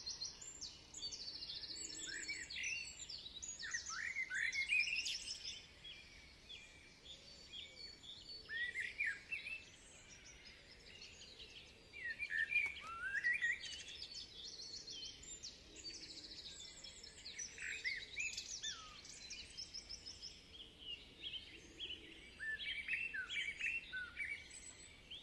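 Several songbirds chirping and calling, with many short rising and falling chirps coming and going throughout.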